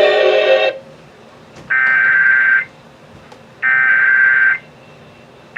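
Emergency Alert System SAME header: bursts of shrill digital data tones, each about a second long with a second's gap, twice, with a third beginning at the very end. This is the coded header that opens an alert. Music cuts off just before the first burst.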